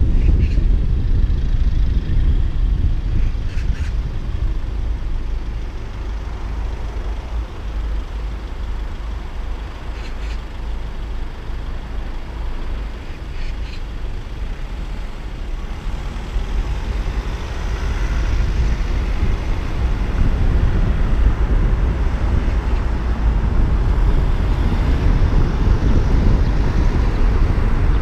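Low rumble of road and wind noise from a car driving through town traffic, heard on the car-mounted camera's microphone. It eases off in the middle as the car slows and builds again about two-thirds of the way through as it picks up speed.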